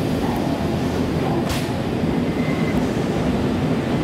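Nankai 1000 series electric train at a station platform: a steady rumble, with one short hiss about one and a half seconds in.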